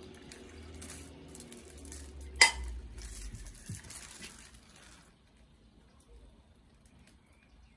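Hard objects clinking and clattering, with one sharp, loud clink about two and a half seconds in; the clatter stops after about five seconds.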